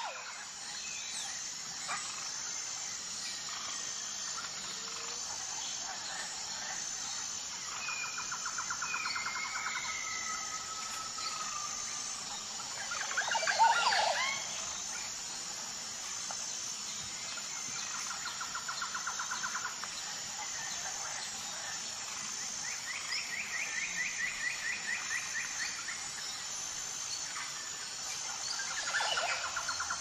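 Forest ambience of birds and insects: a steady high insect drone with a regular pulse, several rapid trills of about two seconds each, a few whistled glides, and one louder call about halfway through.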